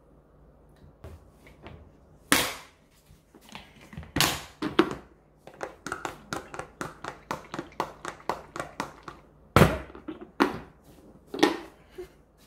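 Metal spoon knocking against a glass food container, then a Glasslock plastic lid pressed on and its locking flaps snapped shut. A run of sharp clicks and knocks, with a quick string of light clicks in the middle and several loud snaps near the end.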